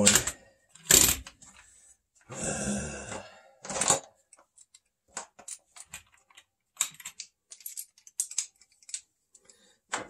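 Metal clicking and clinking from tools and parts worked inside a furnace's blower housing: a few sharp knocks, a rasping scrape about two seconds in, then a run of small irregular ticks.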